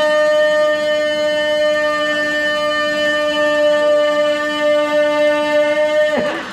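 A single steady musical tone with many overtones, held unwavering for about six seconds and cutting off near the end.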